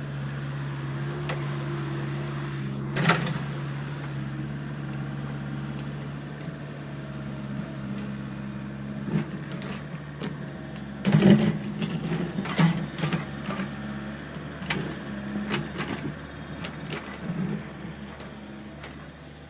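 Diesel engine of heavy construction machinery running steadily, with scattered clanks and knocks: a sharp one about three seconds in and a cluster in the second half, loudest about eleven seconds in.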